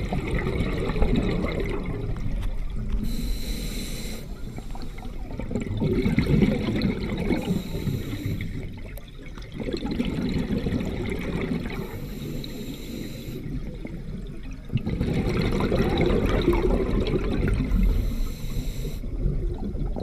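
Scuba diver breathing underwater through a regulator: a short hissing inhale about every four to five seconds, each followed by a long rumble of exhaust bubbles.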